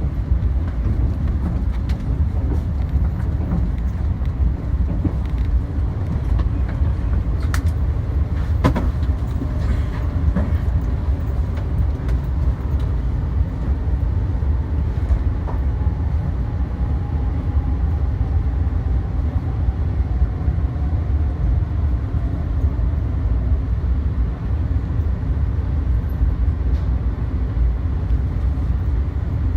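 Steady low rumble of a Joetsu Shinkansen train running, heard inside the passenger car. There are a couple of sharp clicks about eight seconds in, and midway a faint whine slowly falls in pitch as the train slows for its stop.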